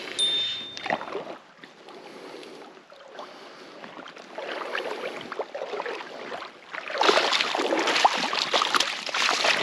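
Water splashing and sloshing around a hooked pike as it is played near the surface, with a jumble of small splashes. It grows louder about seven seconds in.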